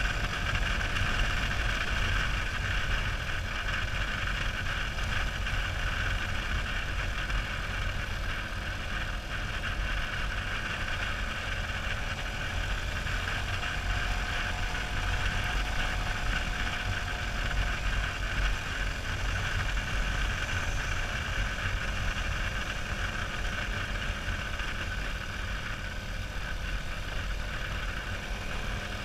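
Motorcycle engine running steadily while riding a gravel road, under a constant low rumble of tyre and wind noise.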